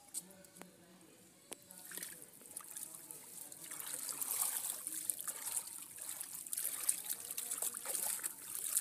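Hands scooping and splashing in shallow muddy water, with water trickling and splattering. A few faint splashes at first, then steadier and louder splashing from about halfway through.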